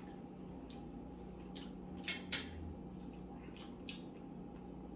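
Fork and spoon clinking lightly against a dinner plate a few times, with two louder clinks close together about two seconds in, over a faint steady room hum.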